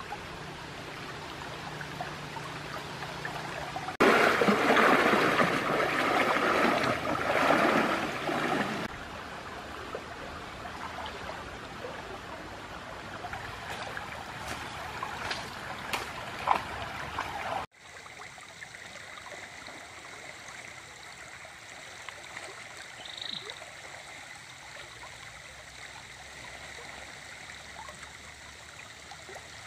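Stream water rushing over snags and shallow rapids, a steady even noise. A much louder, rougher rush of water comes a few seconds in and lasts about five seconds, and about two-thirds through the sound drops suddenly to a quieter steady flow.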